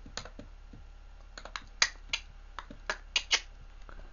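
A dozen or so irregular light clicks and taps, the sharpest about two and three seconds in, over a faint low hum.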